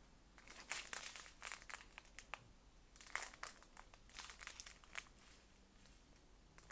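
Small clear plastic bags of diamond-painting drills crinkling in short, irregular rustles as they are handled and turned over.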